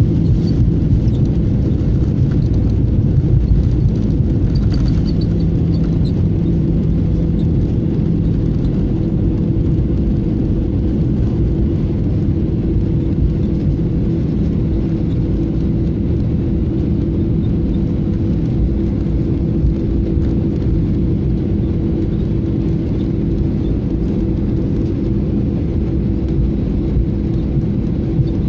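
Airbus A320 cabin noise during the landing rollout: a steady rumble of engines and wheels on the runway with a constant hum, easing off slightly as the aircraft slows. A lower hum drops out about six seconds in.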